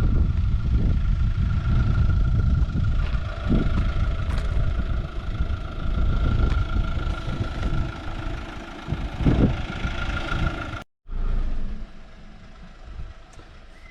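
Mobilvetta K-Yacht 79 motorhome on a Fiat Ducato chassis driving along the road: a steady low rumble of engine and road noise with a thin steady whine over it. The sound drops out briefly about eleven seconds in and is much quieter afterwards.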